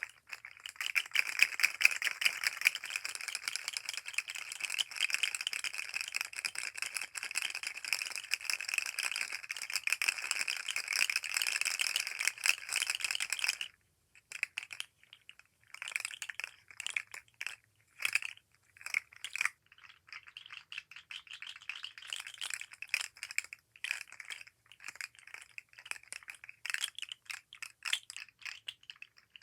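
Fidget slug toy rattling as its jointed segments are shaken and wiggled: a dense, continuous clicking clatter for the first thirteen seconds or so, then a sudden stop, then short irregular bursts of rattling.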